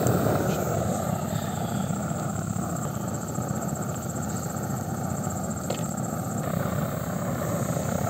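Blowtorch burning steadily under a frying pan, a constant rushing noise of the flame.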